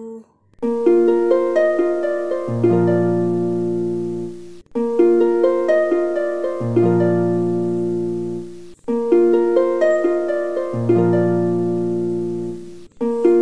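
Background music: a gentle plucked-string melody of decaying notes, a short phrase that loops about every four seconds with brief breaks between repeats.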